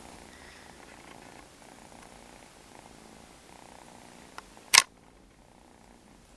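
A domestic cat purring steadily. A faint tick, then a single sharp click, comes a little over four seconds in.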